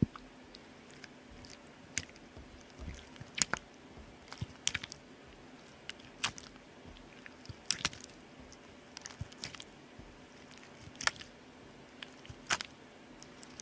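Homemade borax slime being pressed, pinched and folded by hand on a glass tabletop, giving irregular sharp wet pops and clicks about every second or two.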